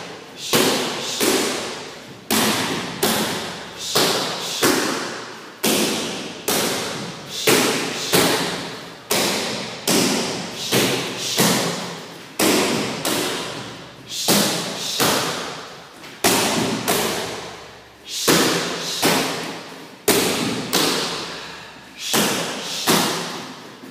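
Kicks landing on a handheld kick mitt, one hard thud after another at between one and two a second, each trailing off before the next.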